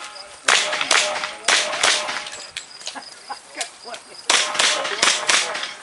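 Handgun shots fired in quick pairs, about eight sharp cracks in four double taps, each pair about 0.4 s apart, with a pause of about two seconds in the middle.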